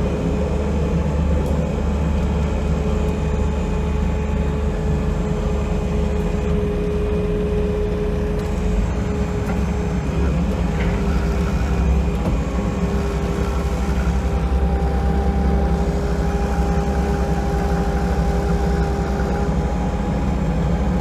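Engine running steadily with a constant hum while round bales are fed through a Tube-Line 6500 in-line bale wrapper.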